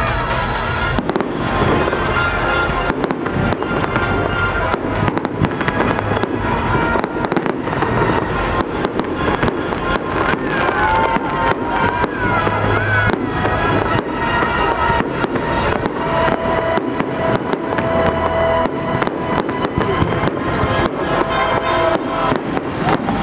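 Fireworks display: aerial shells launching and bursting in a rapid, continuous string of bangs and crackles, with music of long held notes playing underneath.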